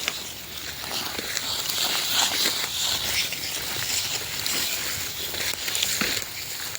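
Dry bamboo leaves and twigs rustling and crackling, with scattered light snaps and a sharper crack about six seconds in.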